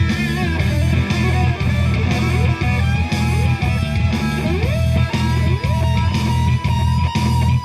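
Live rock band playing loud amplified music with guitar over heavy bass and a steady beat. The guitar slides up several times, then holds one long note from about five seconds in.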